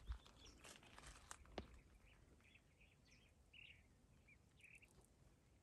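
Faint outdoor quiet with a few light clicks in the first second or so, then a series of short, soft bird chirps.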